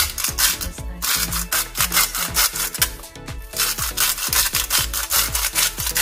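Coarse pink salt being ground from a glass grinder jar: a gritty scraping rattle in three long stretches with short breaks about a second in and near three and a half seconds, over background music.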